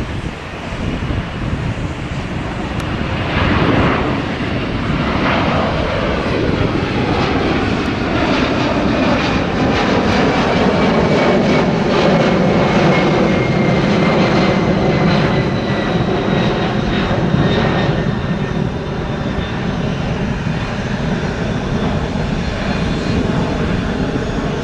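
A Boeing 757's two jet engines at climb-out power as the airliner passes overhead after takeoff: a loud, steady jet noise with a thin whine that slowly falls in pitch as it goes by. It grows louder over the first few seconds and stays loud.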